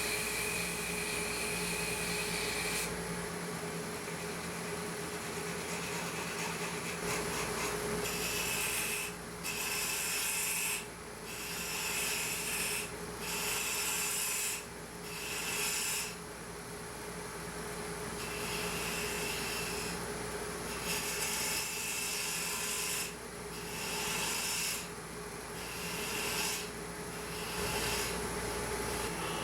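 Wood lathe motor humming steadily while a turning tool cuts the spinning eucalyptus perch with a scraping hiss. The cutting comes in repeated passes of a second or two, with a break of a few seconds near the middle.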